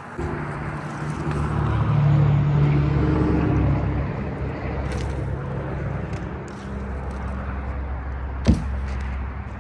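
A motor vehicle engine running steadily at low speed, rising a little and then easing back, with one sharp click or knock near the end.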